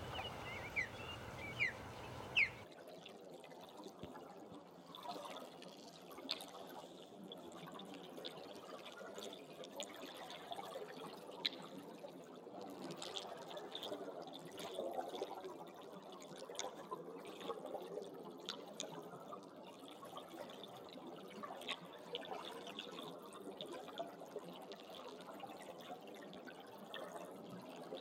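Shallow running water trickling and babbling, with many small drip-like plops and splashes. About two and a half seconds in, the sound switches abruptly from a fuller, deeper rush with a few short high chirps to this lighter trickle.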